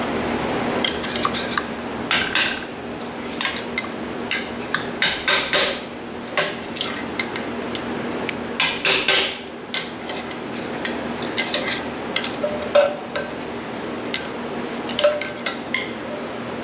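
Irregular sharp taps, knocks and scrapes of a hand tool working wooden shims loose from around a steel shaft wedged between welded steel plates, some strikes coming in quick clusters, over a steady low hum.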